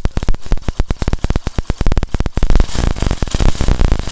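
Hero Passion Pro single-cylinder four-stroke engine running at idle as a rapid, even train of firing pulses, briefly busier past the middle. It runs with the 10 mm bolt loosened, which rids it of the chain-like rattle.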